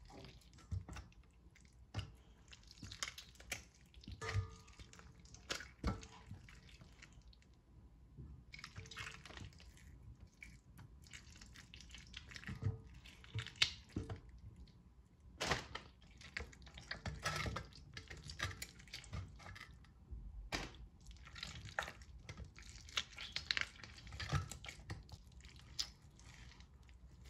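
Boiled chicken being torn apart by hand over a steel bowl: irregular wet squelching and dripping as meat is pulled from the bones and pieces drop into the bowl.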